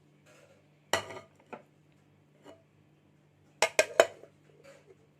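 Dishes clinking as a bowl of marinated fish is covered and handled: one knock about a second in, then three quick sharp clinks just before the four-second mark.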